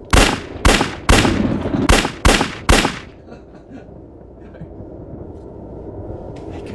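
Gun firing six shots in quick succession over about three seconds, roughly half a second apart, with a short pause before the fourth.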